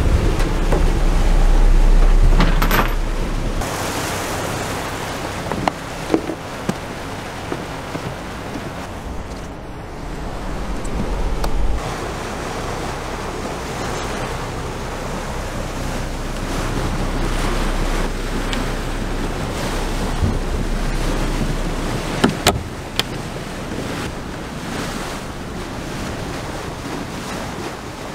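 Wind buffeting the microphone over water washing along the hull of a motor yacht running slowly through open water, with a low rumble that swells and fades and a few short sharp knocks.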